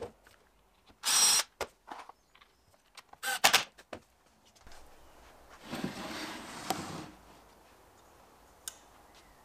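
Handheld power drill running in short bursts against a plywood box: two loud bursts of about half a second, then a longer, quieter run of about a second.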